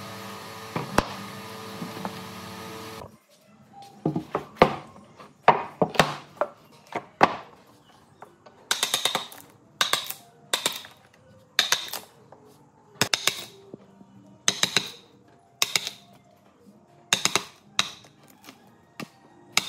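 A steady hum cuts off sharply about three seconds in. Hammer blows follow, first irregular knocks, then steady groups of two or three strikes, each with a brief ring.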